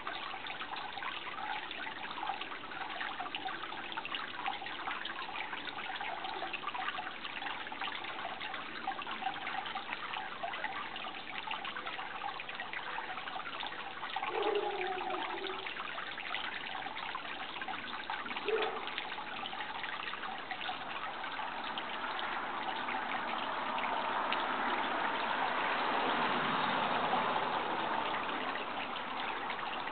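Running water trickling steadily, with two brief low calls near the middle and a swelling rush toward the end.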